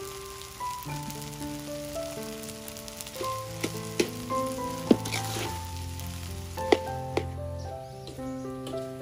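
Rice sizzling in a metal wok as it is stir-fried, with a few sharp clinks of the metal spatula against the pan. Light melodic background music plays throughout.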